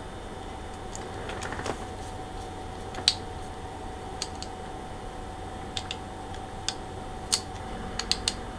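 Small sharp clicks and taps, scattered and irregular, of a small screwdriver working the screw terminal on a little circuit board that clamps a stiff 12 gauge wire. The loudest click comes about three seconds in and a quick run of clicks comes near the end, over a faint steady hum.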